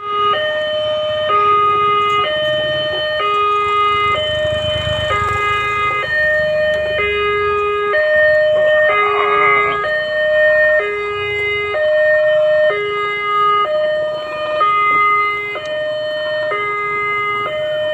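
Railway level-crossing warning alarm sounding an electronic two-tone signal, a higher and a lower tone taking turns about once a second, warning that a train is coming. A low rumble from the passing train runs beneath it for a couple of seconds near the middle.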